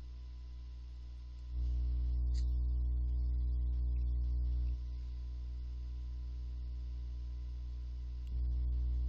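Steady electrical mains hum picked up by the recording, a low drone with a row of even overtones. It steps louder about a second and a half in, drops back partway through, and rises again near the end.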